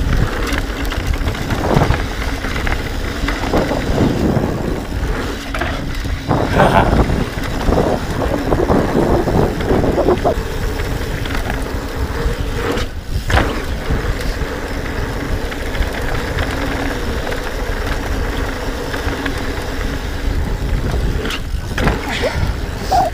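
Mountain bike descending a dirt singletrack: tyres rolling over dirt and wind buffeting the camera microphone in a steady rumble.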